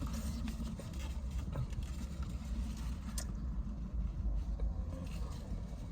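Low, steady rumble of a car engine idling, heard from inside the car's cabin, with faint rustles and small ticks and one sharp click about three seconds in.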